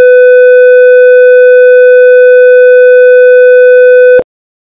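Test tone over colour bars: a single steady, loud electronic pitch with a slight blip shortly before it cuts off suddenly about four seconds in.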